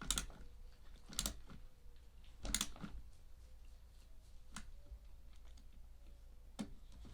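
About five separate sharp clicks and taps, a second or two apart, from a small ratchet screwdriver and plastic parts being handled during assembly.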